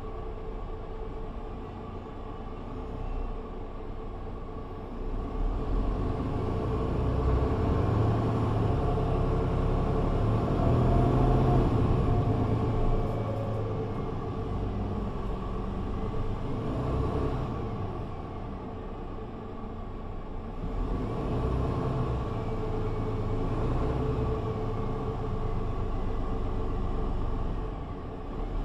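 Mercedes-Benz Citaro (C2) G articulated bus under way: engine and drivetrain drone with a steady whine and deep road rumble. It grows louder from about five seconds in as the bus pulls harder, eases off after about twelve seconds, then builds again around twenty seconds.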